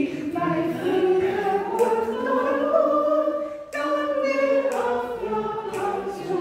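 Several voices singing a simple melody together, unaccompanied, phrase by phrase, with a short break about halfway through.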